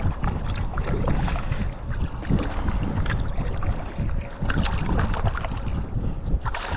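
Wind rumbling on an action camera's microphone aboard a kayak, with water splashing and dripping from slow paddle strokes.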